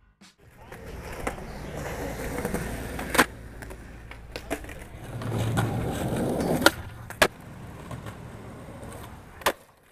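Skateboard wheels rolling over concrete, the rumble swelling twice. Four sharp clacks of the board striking the ground come about three seconds in, twice close together near seven seconds, and once near the end.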